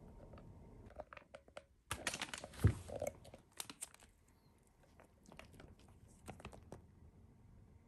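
Plastic dog-treat bag being handled: a dense burst of crinkling and crackling about two seconds in, with one loud snap, then scattered crinkles for a few more seconds.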